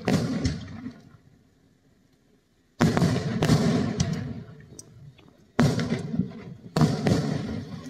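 Aerial fireworks bursting: three sudden booms, about three seconds in, just before six seconds and about seven seconds in, each trailing off in a fading rumble and crackle.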